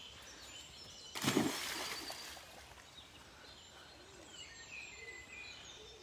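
Wild birds chirping and singing, a scatter of short high calls. About a second in there is a brief, louder burst of noise, the loudest sound.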